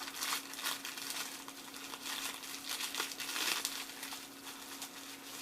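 Plastic wrapping of a Funko Soda figure crinkling and rustling as it is handled and unwrapped by hand: irregular crackles that thin out after about three and a half seconds.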